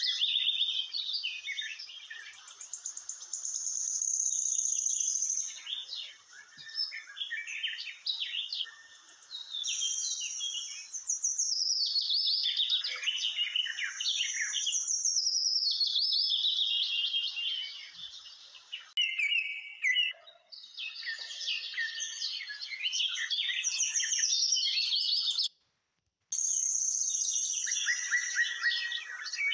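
Birds chirping and singing without a break: many quick high calls and falling whistles overlapping. The sound cuts out for under a second shortly before the end.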